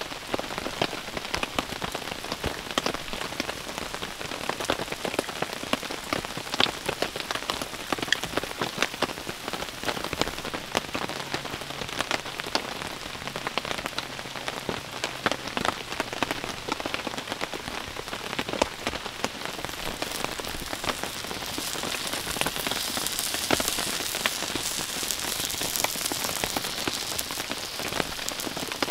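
Steady rain pattering on tent and tarp fabric, with a thick scatter of sharp drop hits. About two-thirds of the way in, a higher hiss builds over the rain: takoyaki batter sizzling in a cast-iron pan on a gas stove.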